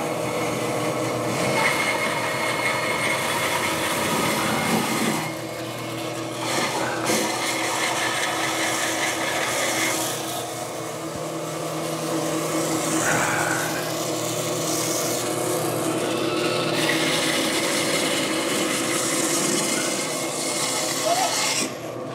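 Bandsaw running and cutting through wood: a rasping cut over the steady hum of the motor, easing briefly about five and ten seconds in.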